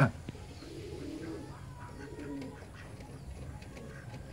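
Ducks mating give a few soft, low, short calls, spaced about a second apart.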